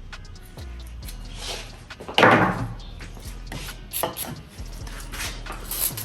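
Hand tools and metal parts clinking and knocking against a transmission casing during disassembly, with one louder clunk about two seconds in.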